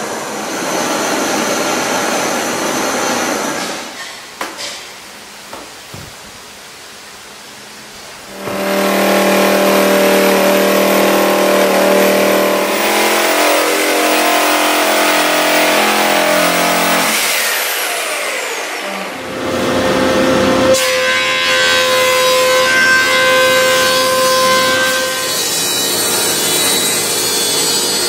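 A sequence of woodworking tool sounds: a handheld torch hissing over a wooden slab, then after a quieter stretch a jigsaw cutting through a wooden board, and near the end a thickness planer running.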